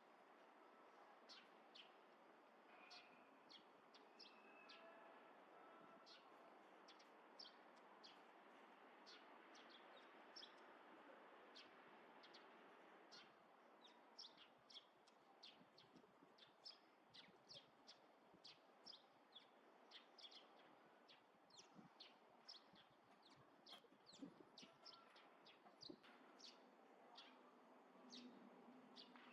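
Small birds calling faintly with many short, high chirps, several a second, over a steady background hush.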